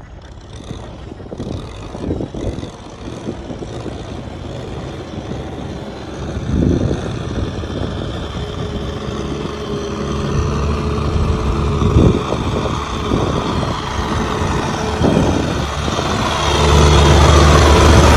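Tractor diesel engine running, growing louder, with scattered knocks and rattles; about a second and a half before the end it turns loud and steady.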